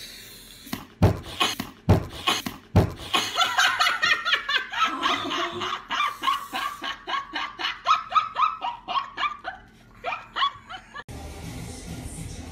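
A head butting a whole watermelon three times: three sharp thumps about a second apart. Then a woman laughing hard for several seconds.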